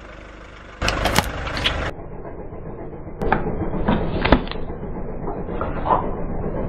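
Car tyre rolling onto small plastic bottles and a spray can on concrete, crushing them with crunching and a string of sharp cracks, the loudest about four seconds in. The car's engine runs underneath.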